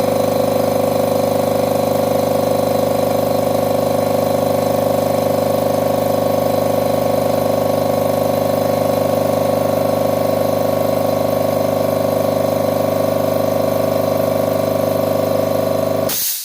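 Low-noise air compressor running with a steady, even hum, then cutting off abruptly near the end with a short burst of noise.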